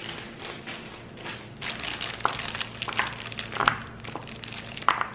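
A plastic bag of baby carrots crinkling as the carrots are shaken out, with a few sharp clicks as they drop onto a plastic cutting board.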